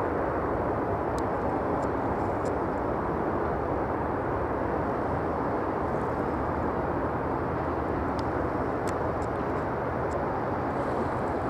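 Jet airliner engine noise, a steady rushing rumble that holds at an even level, with a few faint ticks.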